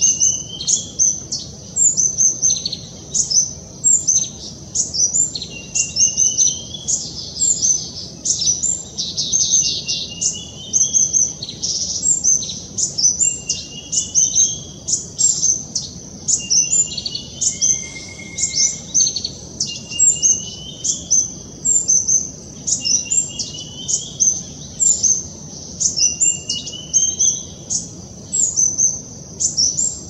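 Male black-throated sunbird calling without a break: rapid, sharp, high-pitched notes, with a short rising note repeated every few seconds.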